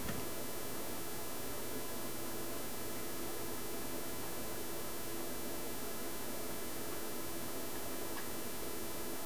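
Steady electrical hum with hiss, unchanging throughout; no cutting or machining is heard.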